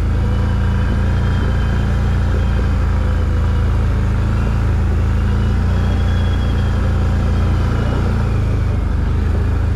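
ATV engine running steadily at low speed under way, with a deep rumble and a faint whine that drifts gently up and down in pitch.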